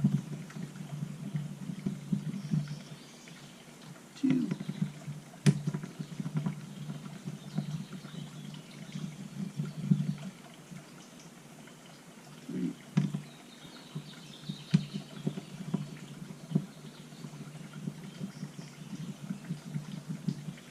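Small sharp clicks and taps of a screwdriver and screws on a small chainsaw carburetor being taken apart, a few seconds apart, over a low steady hum.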